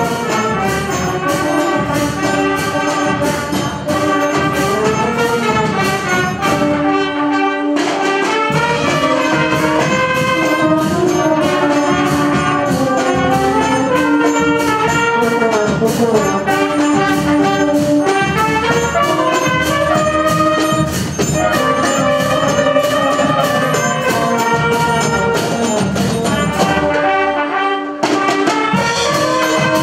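A band of tubas, euphoniums and trumpets with melodicas playing a tune over a steady drum beat. The drums drop out briefly twice, about a quarter of the way in and again near the end, while the horns hold on.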